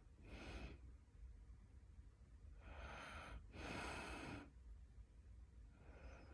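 Faint snoring breaths during sleep: rough, noisy breaths a second or so apart, with a louder in-and-out pair about three seconds in. The owner wonders whether this snoring is a sign of sleep apnea.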